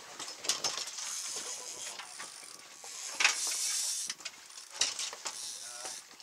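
Fishing reels being cranked, their gears and drags giving an irregular ratcheting, clicking rasp, with a sharp louder clack about three seconds in.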